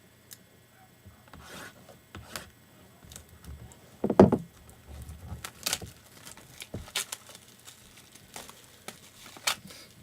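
Plastic shrink wrap being torn and crinkled off a sealed box of trading cards, with scattered light clicks of cardboard handling and a louder thump about four seconds in.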